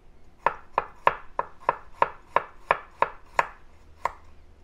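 Kitchen knife chopping garlic cloves on a wooden cutting board: a steady run of sharp knocks, about three a second, pausing briefly near the end.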